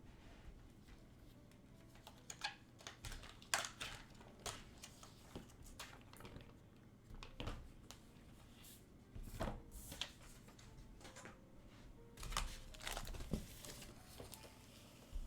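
Handling noise of an unboxed keyboard and its packaging: irregular light clicks and short rustles, spaced a second or so apart.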